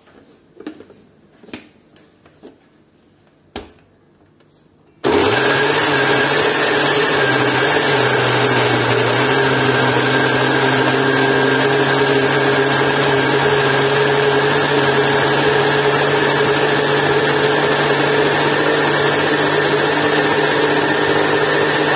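A few plastic clicks and knocks as the lid is pressed onto a Kenwood food processor's blender jug. About five seconds in, the motor starts suddenly and runs steadily, blending yogurt, gram flour, onion and green chillies into a thin batter.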